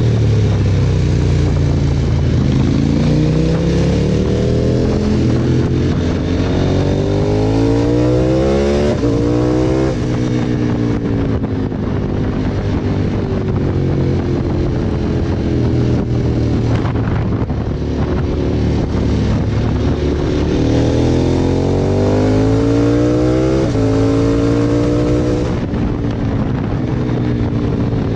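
KTM 1290 Super Adventure S V-twin engine pulling hard, its revs climbing and then dropping suddenly at each upshift. The revs rise over the first third and drop twice, then run fairly steady before climbing and shifting again twice near the end.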